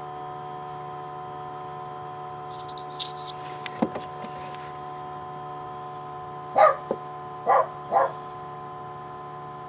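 A dog barking three times in the second half, over a steady electrical hum.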